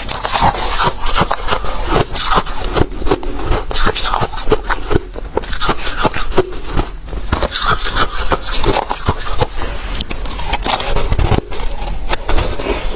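Close-miked chewing of hard, refrozen crushed ice: a dense run of irregular, sharp crunches and cracks as the ice breaks between the teeth.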